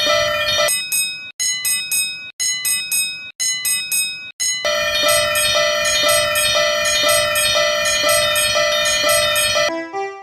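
Level-crossing warning bells ringing in quick repeated clangs, several pitched tones layered together. From about a second in the ringing is cut into short stuttering bursts with gaps about once a second, then rings steadily again. Near the end it gives way to a short keyboard melody.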